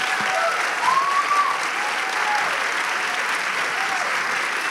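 Audience applauding steadily, with a few brief calls rising above the clapping about a second in.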